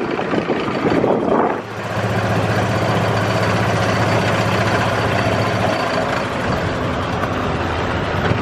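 Engine idling with a steady low hum, after about a second and a half of wind buffeting the microphone.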